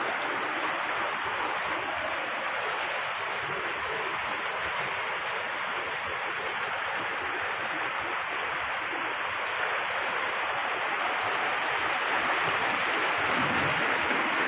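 Steady rush of flowing water, with no breaks, growing slightly louder near the end.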